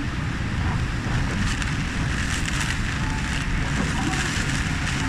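Yui Rail monorail running: a steady low rumble under a hiss that swells and fades.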